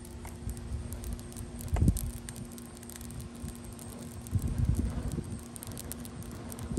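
Hardwood fire burning in an open brick fire pit, flames crackling with scattered small pops, over a low rumble from wind on the microphone that surges about two seconds in and again later.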